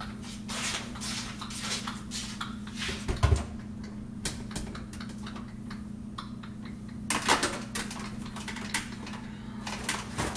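Things being moved about on pantry shelves: scattered light clicks and knocks of containers and packages, with a low thud about three seconds in and a denser clatter about seven seconds in, over a steady low hum.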